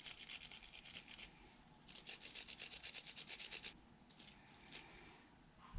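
Small wire brush scrubbing a carburetor's emulsion tube in two quick bouts of rapid back-and-forth strokes, about ten a second, with a few lighter strokes near the end.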